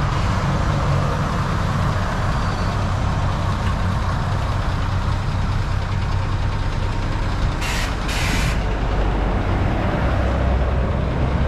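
Mitsubishi Fuso Fighter's 6M60 inline-six turbo diesel idling steadily, with two short bursts of compressed-air hiss from the truck's air system about eight seconds in.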